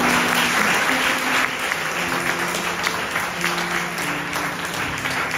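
Congregation applauding steadily, with a slow worship song's long held notes playing softly beneath.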